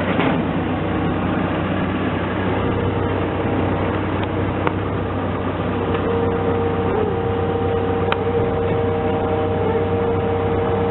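Engine of a piece of heavy equipment running steadily, with a steady higher whine joining about six seconds in.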